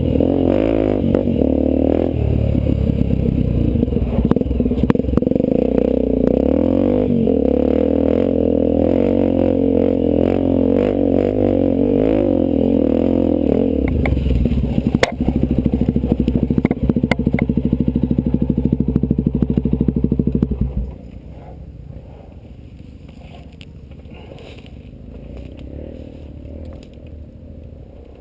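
Off-road vehicle engine running on a trail, its pitch rising and falling with the throttle, with scattered knocks and clatter. About three-quarters of the way through it drops suddenly to a much quieter low rumble.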